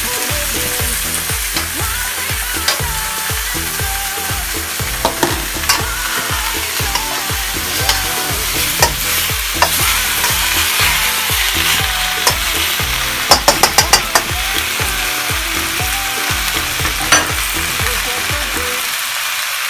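Chicken and pineapple chunks sizzling in a hot steel wok over a gas flame, stirred and tossed with a metal spatula that scrapes and clinks against the wok. A quick run of sharp clinks comes about two-thirds of the way through.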